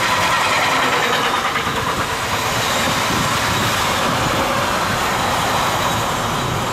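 Freight wagons (flat cars loaded with tank containers and swap bodies) rolling past at speed: a steady noise of steel wheels on rails, with faint steady whining tones from the running gear.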